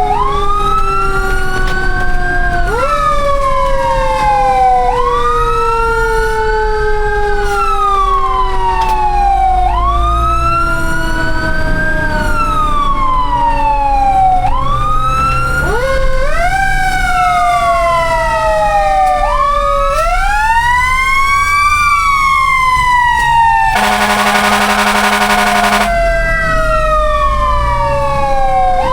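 Several fire truck sirens wailing at once, each rising sharply and then falling slowly, over and over every few seconds, over a low engine rumble. Near the end a horn blasts steadily for about two seconds.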